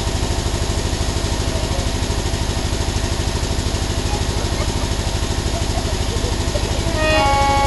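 A small engine running steadily, with a fast, even low pulse. A sustained musical chord starts near the end.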